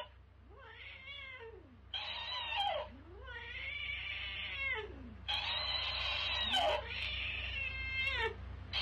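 A cat yowling in long drawn-out meows that rise and fall, answered each time by a talking-hamster plush toy that plays the yowl back at a higher pitch. The two take turns twice.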